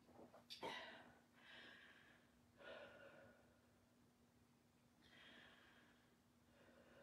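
Faint breathing of a woman catching her breath between exercise rounds: three slow breaths, with a few short clicks near the start.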